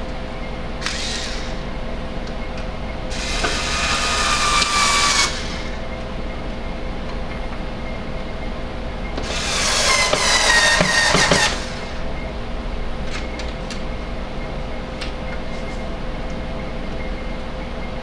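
Electric screwdriver driving screws: a brief blip, then two runs of about two seconds each. The motor whine drops in pitch in each run as the screw tightens. A few light clicks come later.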